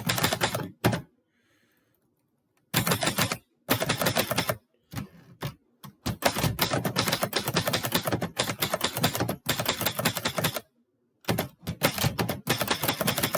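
Typewriter keys struck in quick runs of clacks. There are several bursts, one lasting about four seconds, separated by short pauses.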